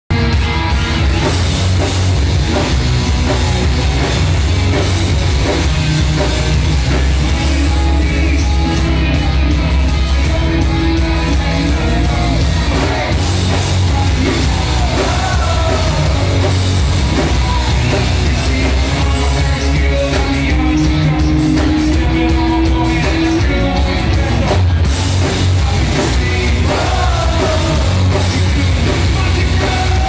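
Rock band playing live: a singer over electric guitars, bass and drums, loud and continuous, heard from within the audience.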